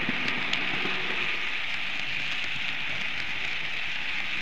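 Märklin model train running along the track, a steady rushing rolling noise with a few faint clicks.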